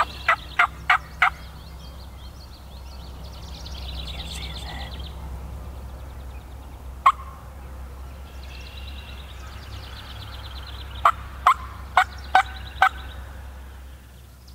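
Wild turkey calling: a run of about five short, sharp notes near the start, a single note about seven seconds in, and another run of five near the end, with fainter rapid higher chatter in between.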